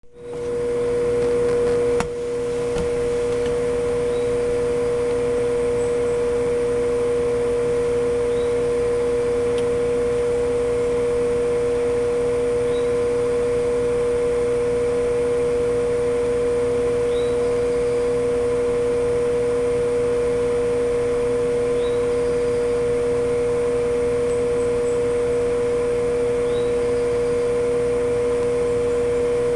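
Egg incubator's fan motor running with a steady hum on one strong pitch.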